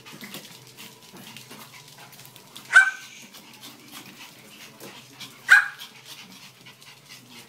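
German spitz barking twice, two short sharp barks a few seconds apart.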